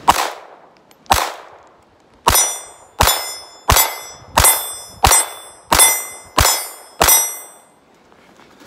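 Ruger LCP II .22 LR pistol firing ten shots, emptying its ten-round magazine: two shots about a second apart, then a steady string of eight at roughly one and a half shots a second. From the third shot on, each crack is followed by a short metallic ring from steel targets being hit.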